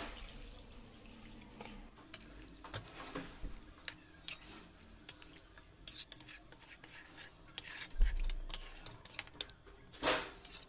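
Metal spoon scraping and clinking against a metal kadhai while stirring chicken curry just loosened with warm water: scattered light clicks and scrapes, with a few louder knocks.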